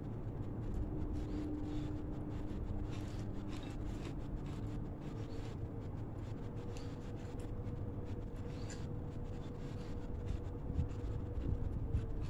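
Soft rubbing and small scattered clicks of fingers mixing and gathering rice and stir-fried vegetables by hand on a plate, over a steady low hum.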